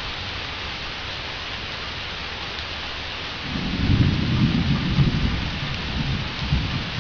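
Steady rain falling, with a deep roll of thunder that begins about halfway through, rumbles loudest for a second or two, and then dies away.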